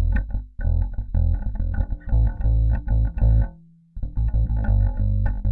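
Epiphone Thunderbird Gothic electric bass played fingerstyle, plausibly with both of its pickups blended at full volume: a run of plucked bass notes, with one note left to ring and fade into a short pause about three and a half seconds in before the playing resumes.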